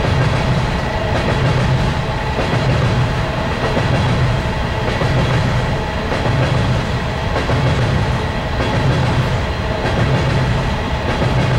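Empty BNSF coal hopper cars rolling past at steady speed: a continuous rumble of steel wheels on rail with a clickety-clack that swells about every second and a half.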